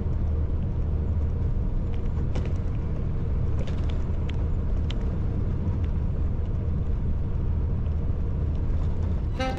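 Peterbilt semi-truck driving at a steady speed: a constant low engine and road rumble with a few faint light ticks.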